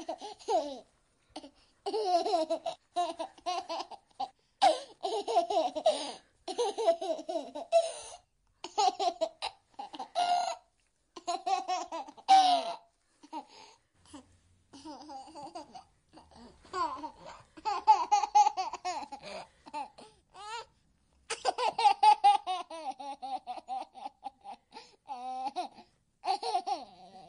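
A baby laughing in runs of short, quick giggles, with some babbling in between.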